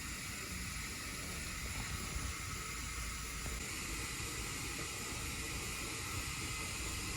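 Faint steady hiss of background noise, with no distinct event standing out.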